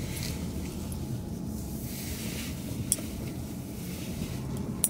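Steady low rumble of a car's cabin, with a sharp click about three seconds in and another near the end.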